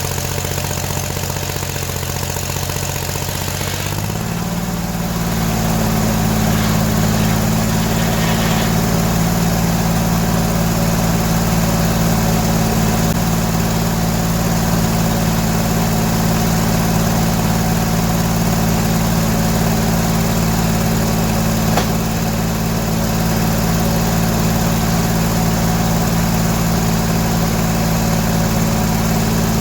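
Gas engine powering a circular sawmill with a 48-inch blade, running steadily. About four seconds in it speeds up to a higher pitch, then holds that speed.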